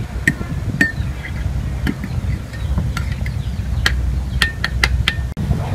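Metal spoon clinking against a small ceramic bowl while stirring, about nine sharp clinks at uneven intervals that come closer together near the end, several with a brief ringing tone.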